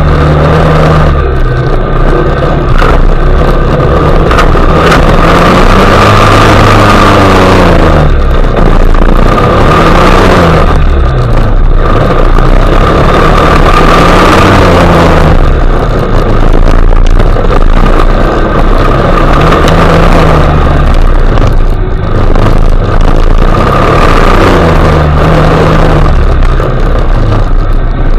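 ATV engine running under changing throttle, its pitch rising and falling again and again, over a steady hiss of the front tyre churning and spraying wet mud and water.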